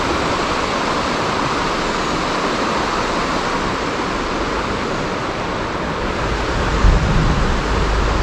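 Steady rushing of river water. A low rumble comes in about six and a half seconds in, with a single thump shortly after.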